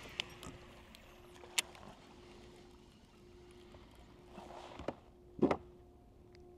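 Pedal fishing kayak under way: faint water noise with a few light clicks and knocks from the boat, the loudest a single knock about five and a half seconds in, over a faint low hum that comes and goes.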